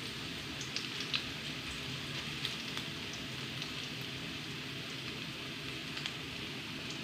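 Chopped food frying in shallow oil in a steel wok: a steady sizzle with scattered small pops and crackles.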